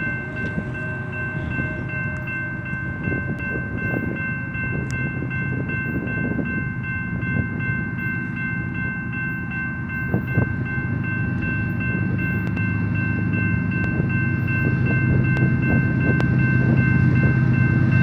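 Railroad crossing warning bell ringing steadily, with the deep engine rumble of an approaching BNSF freight train's diesel locomotives growing louder toward the end.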